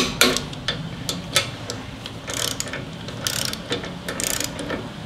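Click-type torque wrench ratcheting on the front brake caliper mounting bolts of a Harley-Davidson touring bike as they are tightened to 33 foot-pounds: irregular metallic ratchet clicks, with short quick ratcheting runs about two and a half, three and a half and four seconds in.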